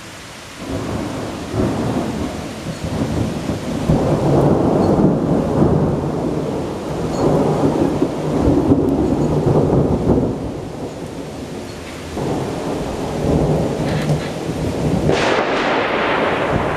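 Long rolling thunder over steady rain. The low rumble starts about half a second in and rolls on in waves, easing briefly around twelve seconds before building again, with a sharper, crackling peal near the end.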